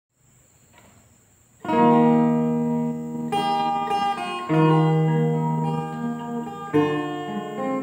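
Steel-string acoustic guitar with a capo, plucked: after a short quiet start it comes in at about a second and a half with a ringing chord, then new chords follow roughly every second and a half, each left to ring and fade.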